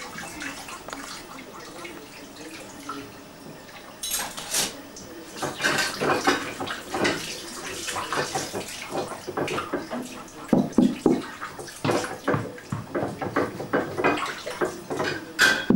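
Water running at a kitchen sink while dishes and utensils are handled, with irregular clatter and clinks starting about four seconds in.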